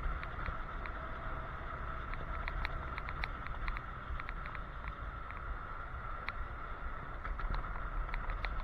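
Electric scooter riding on a paved road: steady wind and tyre rumble with a steady high whine, and frequent small clicks and rattles.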